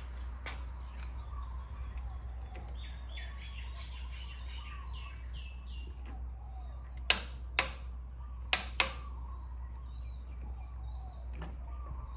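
Four sharp clicks in two pairs, from a click-type torque wrench breaking over at its set torque as the oil filter and drain plug are tightened. Birds chirp faintly before them, over a steady low hum.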